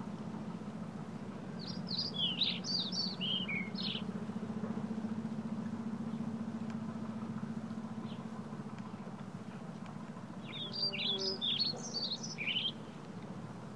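A songbird singing two bursts of quick, high chirping notes, each about two seconds long, one a couple of seconds in and one near the end, over a low steady hum.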